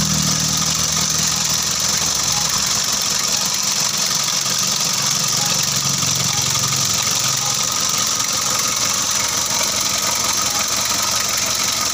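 Mitsubishi L300 four-cylinder diesel engine idling steadily with its valve cover off and the rocker arms exposed. It is running just after an overhaul, to check that oil reaches the rocker arms and valves.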